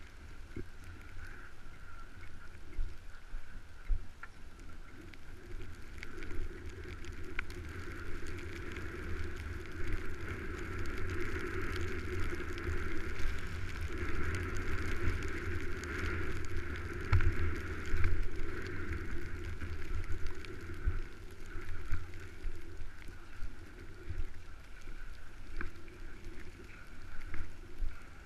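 Skis sliding and scraping over snow on a downhill run, with wind buffeting the microphone, louder through the middle stretch.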